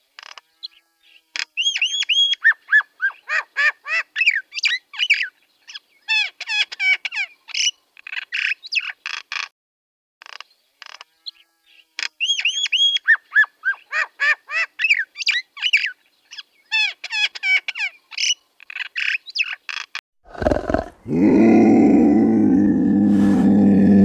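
Bird calls in a rapid chatter of squeaky whistles and chirps that sweep up and down in pitch, in two runs of about eight seconds each. About twenty seconds in, a big cat's low, drawn-out growl from a snow leopard takes over as the loudest sound.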